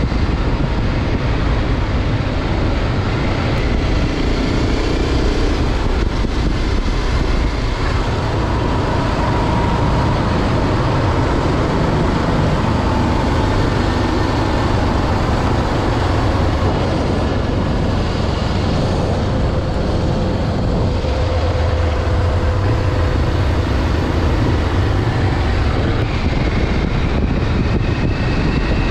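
BMW G650 Xcountry's single-cylinder engine running steadily under way, heard from on the bike, its note drifting slowly up and down with speed, over rushing wind and road noise.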